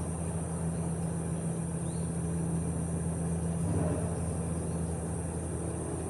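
Steady low mechanical hum over a wash of background noise, with a constant high-pitched hiss above it.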